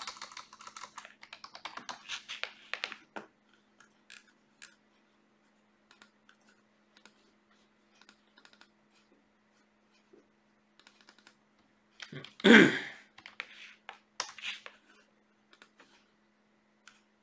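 Typing on a computer keyboard: a quick run of keystrokes for the first three seconds, then scattered single clicks. One short loud noise comes about twelve seconds in, over a faint steady hum.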